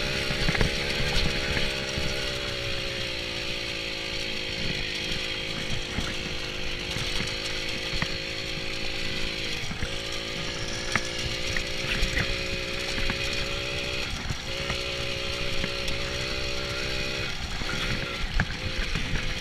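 Moped engine running steadily under throttle, its pitch dropping briefly three times as the throttle is eased and picked up again. Short rattles and knocks from the bike riding over rough grass.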